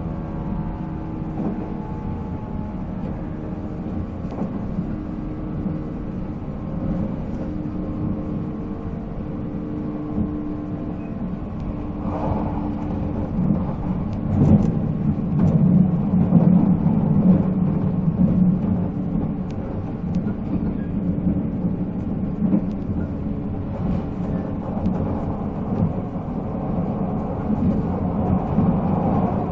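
Onboard running sound of a 485-series electric train at speed: the MT54 traction motors whine in steady tones over the rumble of wheels on rail. About halfway through the whine fades and the rail rumble grows louder for several seconds.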